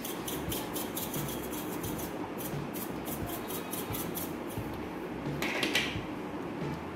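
Quick light ticks and rattles of a small seasoning container being shaken over a ceramic bowl of flour, with a short gritty hiss a little past the middle as the powder pours out.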